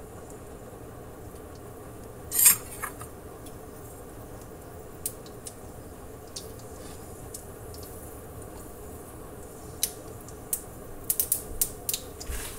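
Mustard seeds popping in hot coconut oil: sharp, scattered pops and crackles over a faint steady hum. One louder crackle comes about two seconds in, a few pops are spread through the middle, and they come thick and fast near the end as the seeds start to splutter.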